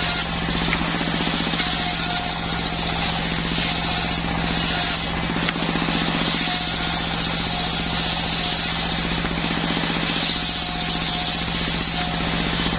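Circular saw machine for sawing timber (serkel kayu) running steadily, its motor giving a constant hum under a broad whirring hiss.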